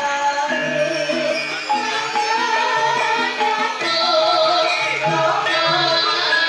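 Javanese gamelan ensemble playing a Banyumasan gending. Bronze metallophones and kettle gongs sound a steady pattern of struck, ringing notes, with a singer's voice gliding over them.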